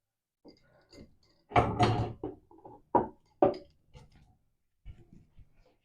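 Weight plates being added to a table pulley's weight stack, clanking and knocking: a loud cluster of clanks about a second and a half in, two sharp knocks about a second later, then lighter taps.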